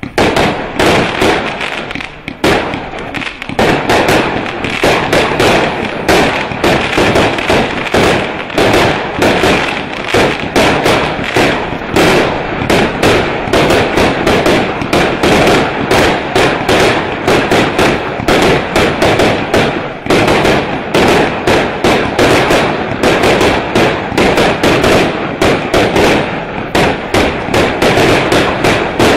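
Stealth Fireworks 'Blitzkrieg' multi-shot firework cake firing: a rapid, continuous string of launch thumps and aerial bursts, several a second, with only brief lulls.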